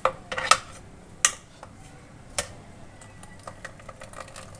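Kitchenware being handled: four sharp clinks and knocks in the first two and a half seconds, then scattered light ticks. No blender motor is running.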